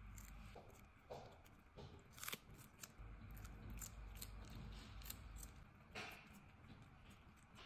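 Kitten biting and chewing a raw cucumber stick: a run of faint, crisp crunches, the sharpest about two seconds in and again near six seconds.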